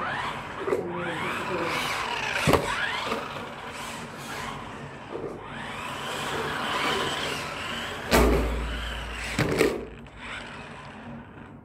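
Electric drive motors of a ZHANGL twisting RC stunt car whining, rising and falling in pitch again and again as the car speeds up and slows. A few sharp knocks, and a heavy thump about eight seconds in; it quietens near the end.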